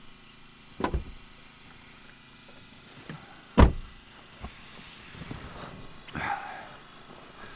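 A few soft thumps and rustling as people shift about on a blow-up mattress in the back of a car. The loudest thump comes about three and a half seconds in.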